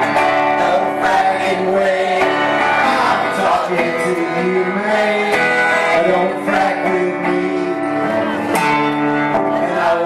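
Background music: a guitar-led country-style song.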